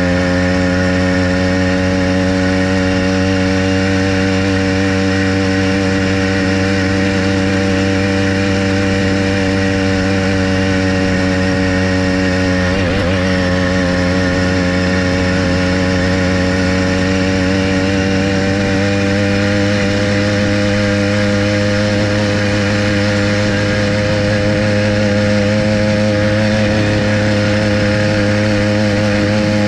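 Motorized bicycle's small engine running steadily at cruising speed, with a buzzy, even drone. Its pitch dips briefly about halfway through and creeps up slightly near the end.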